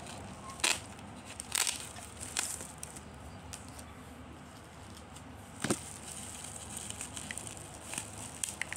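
Plastic toy packaging crackling and clicking as a boxed toy train is unwrapped: a handful of short, sharp crackles over faint rustling, the loudest about two-thirds of the way through.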